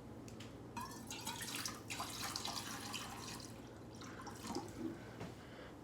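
Water running and splashing into a pet's water bowl for about three seconds, starting about a second in, then easing off.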